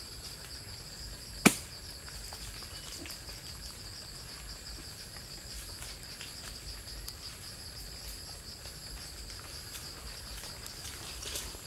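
Insects chirring steadily on one high, even note, with a single sharp knock about a second and a half in, much louder than anything else.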